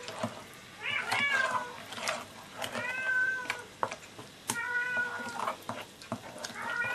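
A cat meowing again and again, about four drawn-out meows that rise and fall in pitch. Between them a metal spoon scrapes and clinks against an enamel bowl as a thick batter is stirred.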